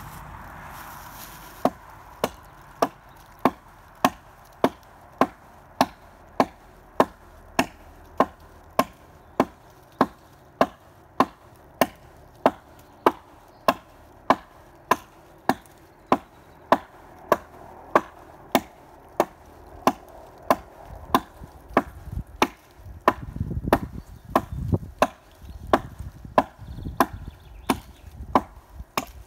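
Hatchet chopping into a fallen tree: a steady run of sharp wooden strikes, a little under two a second, beginning about two seconds in.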